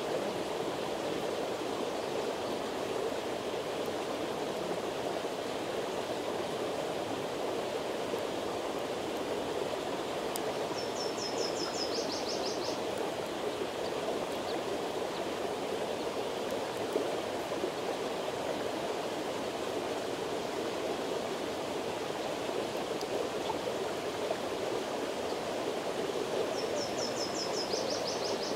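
Steady rush of flowing water, even and unbroken. A short, high, quick trill that steps down in pitch cuts in twice, about eleven seconds in and again near the end.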